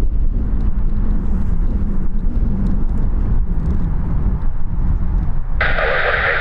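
Steady low rumble with a faint wavering hum, typical of an airliner's jet engines heard across an airfield. Near the end an airband radio scanner's speaker cuts in suddenly with a hissing, band-limited sound.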